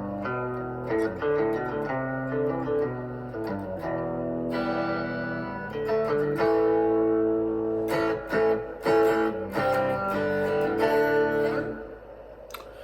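Guitar being played, a run of plucked notes and chords that stops shortly before the end.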